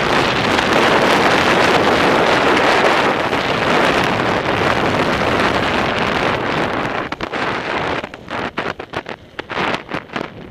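Wind rushing over the camera's microphone during a fast descent of a ski slope, a loud steady rush that breaks into choppy gusts and drops away in the last few seconds.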